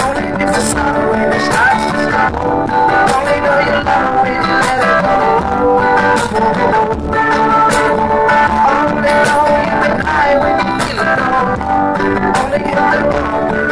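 Live rock music: guitar played with a voice singing along, with regular strummed or struck accents.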